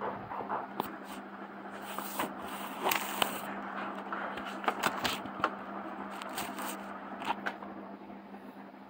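German shepherd puppies nursing from their mother: soft rustling and scraping with many small clicks, busiest in the middle, over a steady low hum.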